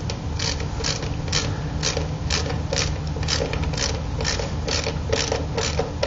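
A wood screw being driven by hand with a screwdriver through a metal door striker plate into wood, giving a short scraping squeak about twice a second as the screwdriver is turned.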